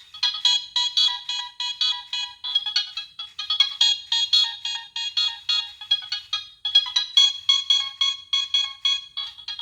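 Nokia 3588i cell phone playing one of its preloaded ringtones through its small speaker: a fast melody of short notes, several a second, thin with nothing low in it. There is a brief break about seven seconds in.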